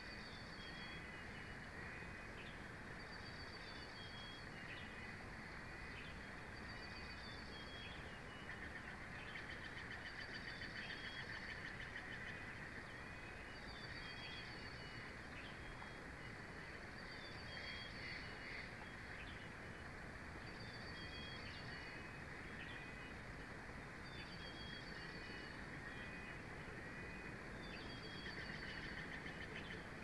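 A small bird repeating a short, high call about every two seconds, over a steady outdoor background hiss.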